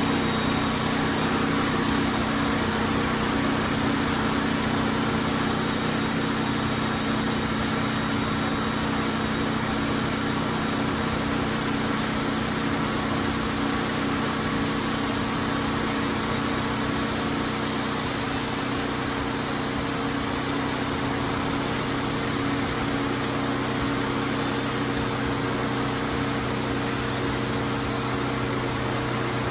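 Wood-Mizer LT28 portable bandsaw mill's engine running steadily.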